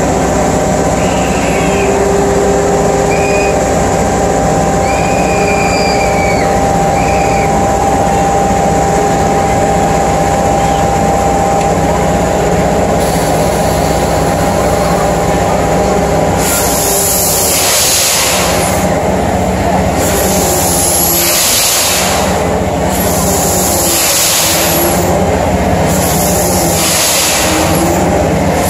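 Fairground spinning ride running, its machinery giving a steady mechanical hum. From a little past halfway, a loud hissing whoosh recurs every two to three seconds as the ride turns.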